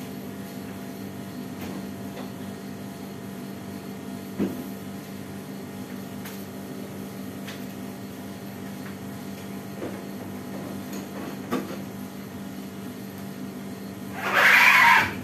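Steady low electrical hum of a kitchen appliance, with a few faint knocks off to the side. About fourteen seconds in, a loud noisy burst lasts about a second.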